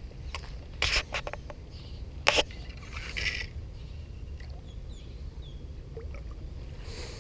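A few sharp splashes and knocks, the loudest about two seconds in, as a hooked fish is played in to the bank on a spinning rod, over a steady low rumble.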